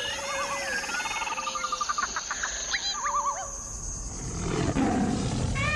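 Jungle soundtrack: warbling, trilling bird calls, followed about four and a half seconds in by a big cat's low roar. A rising siren-like wail begins just at the end.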